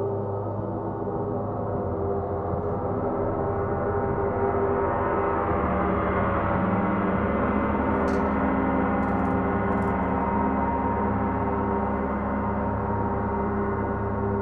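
Gongs sounding in a sustained, layered wash of many overlapping ringing tones, as in a gong bath. Deeper low tones swell in about five and seven seconds in, and a few faint high ticks come near the middle.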